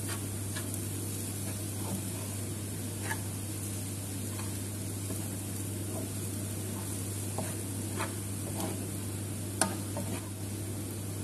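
Cauliflower rice sizzling in a frying pan as a wooden spoon stirs and scrapes it, with scattered short scrapes and knocks of the spoon against the pan, the sharpest one near the end, over a steady low hum.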